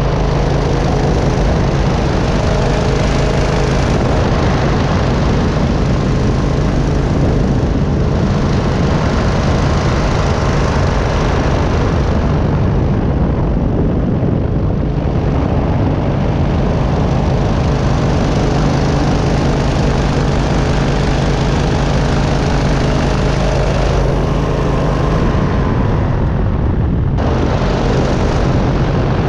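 Engine and pusher propeller of a powered parachute running steadily in cruising flight, at an even, loud level throughout.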